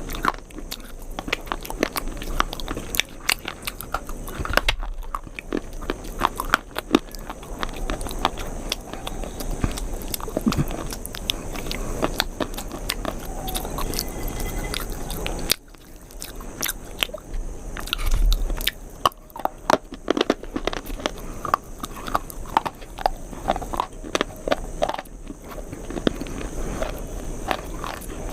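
Close-miked chewing and crunching of a brittle, crisp food: a dense, continuous run of sharp crackles and bites.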